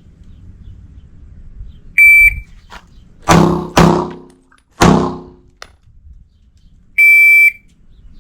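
Electronic shot-timer beep, then three handgun shots in quick succession (the first two half a second apart, the third a second later), and a second long beep near the end.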